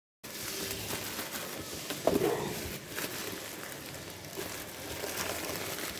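Bubble wrap and a plastic bag crinkling and rustling as they are pulled out of a cardboard box, with scattered crackles and one louder rustle about two seconds in.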